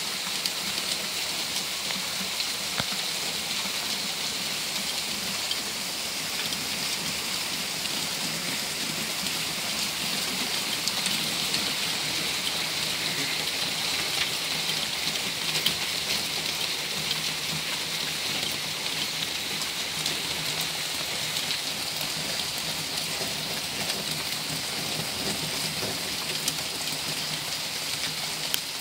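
Heavy storm rain falling steadily, drops hitting paving, a wooden railing and leaves as a dense hiss with many small sharp drop hits.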